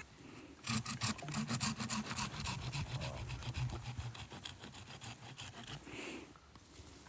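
A saw cutting into a bonsai stump in quick, even strokes, starting about a second in and stopping near six seconds.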